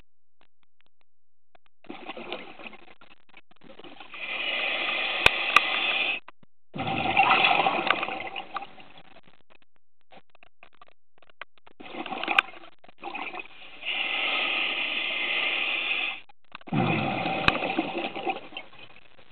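Scuba diver breathing through a regulator, two breaths: each is a steady hiss as air is drawn through the regulator, then a rush of exhaled bubbles, with a quiet pause between the breaths. A few small clicks are heard over the first and second breaths.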